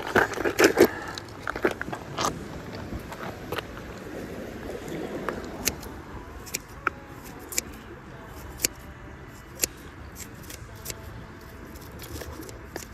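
Handling noise: plastic bait packaging crinkling and clicking in the first second or so, then scattered single sharp clicks and taps over a faint steady background.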